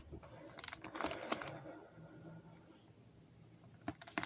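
Pokémon trading cards being handled: light clicks and taps of cards against each other, a cluster about a second in and two sharp clicks near the end.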